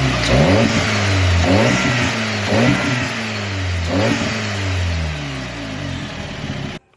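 Audi S3's turbocharged four-cylinder engine, breathing through a new carbon fiber air intake, revved in about five quick throttle blips, each rising fast and sinking slowly back toward idle, with a faint turbo whistle rising on some of the blips. The sound cuts off suddenly near the end.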